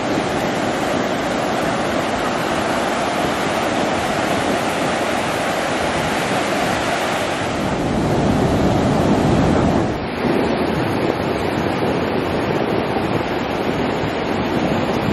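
Ocean surf breaking and washing up a sandy beach, a steady rushing wash, with wind buffeting the microphone. The sound dips briefly about ten seconds in, then carries on duller.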